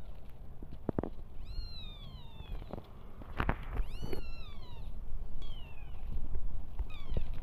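Two-day-old newborn kittens mewing: repeated high, thin cries that fall in pitch, sometimes two at once. A few short knocks are heard about one and three and a half seconds in.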